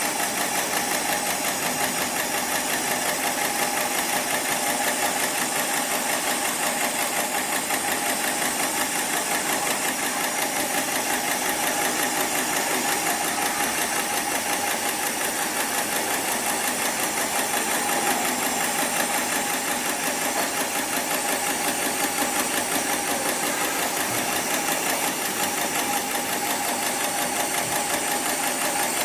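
Heavy-duty programmable pattern sewing machine stitching thick sling webbing, running steadily with a rapid, even knock from the needle strokes.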